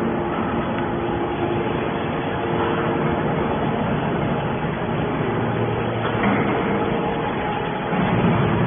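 Horizontal hydraulic scrap-metal baler running: a steady machine hum with a few held tones that fade out about five seconds in, over a constant noisy background.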